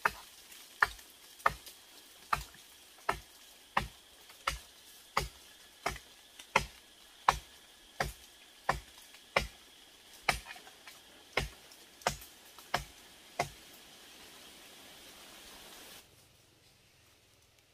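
Regular sharp knocks, about three every two seconds, over a steady hiss; the knocks stop about thirteen and a half seconds in and the hiss cuts off a couple of seconds later.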